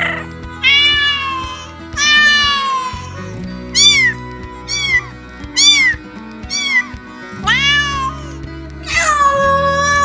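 An animal calling over and over, about nine pitched calls that each rise and fall, some short and some drawn out, over background music.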